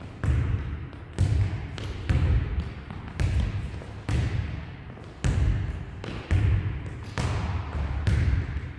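Soccer ball being kicked and bouncing on a wooden sports-hall floor: a thud about once a second, each one echoing briefly in the hall.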